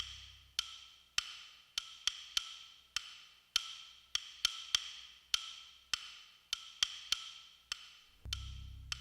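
Background music: a sparse beat of sharp, ringing wood-block-like hits, about two a second, with a deep bass note coming in near the end.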